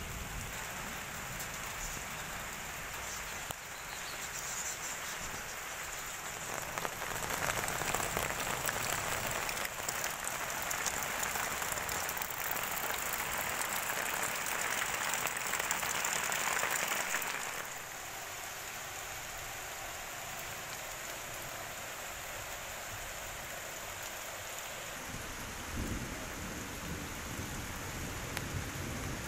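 Steady rain pattering on leaves, grass and a muddy puddle, a continuous hiss that grows louder for about ten seconds in the middle, while drops splash into the standing water.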